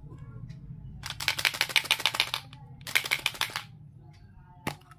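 Small plastic alphabet letters rattling inside a plastic play-dough tub as it is shaken, in two bursts of rapid clicking, followed by a single sharp click near the end.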